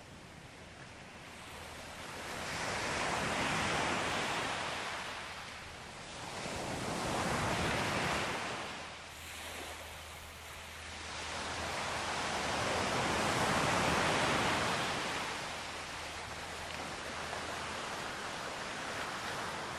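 Sea waves washing onto a shore, the surf swelling and falling back in slow surges several seconds apart.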